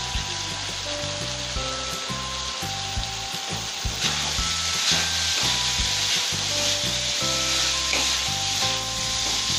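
Spiced chicken-mince filling with grated carrot and coriander sizzling in an aluminium kadai, stirred and scraped with a wooden spatula. The sizzle grows a little louder about four seconds in, once the stirring starts.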